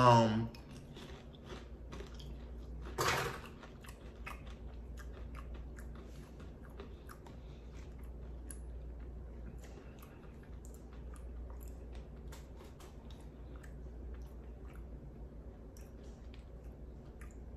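A person chewing a mouthful of peanut-butter-cup flavoured popcorn: many small, quiet crunches throughout. A brief louder crackle about three seconds in.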